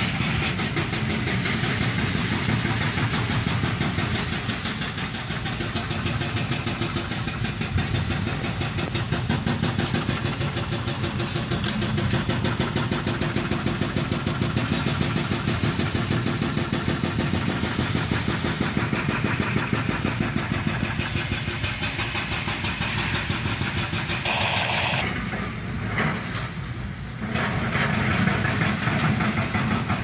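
An engine running steadily with a fast even pulse, easing off briefly near the end.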